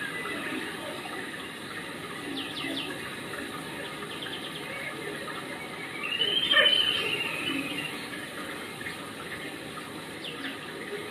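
Steady rushing background noise like running water. About six seconds in comes the loudest moment, a brief high-pitched squeal that wavers, and a few faint short chirps come and go.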